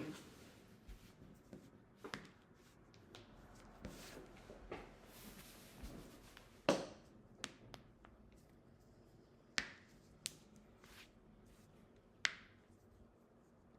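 Knuckles being cracked: a string of sharp, short pops at uneven intervals, about seven in all, with a few fainter clicks between them.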